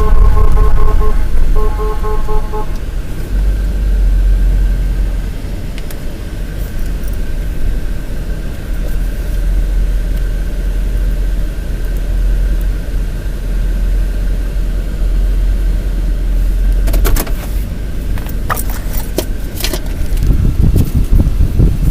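A moving motor vehicle gives a steady low rumble, with a short beeping tone pulsing in the first two or three seconds. A cluster of rattling clicks comes from about 17 to 20 seconds in.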